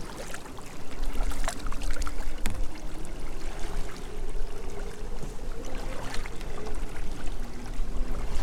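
Kayak paddling: water splashing and trickling off the paddle blades with each stroke, over a low rumble of wind on the microphone.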